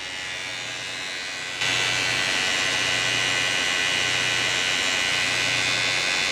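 Volvo FM370 truck's power take-off making an abnormal steady whirring noise over a low hum while switched on but failing to engage. The noise steps up in loudness about a second and a half in. The mechanic traces the fault to a worn PTO shaft.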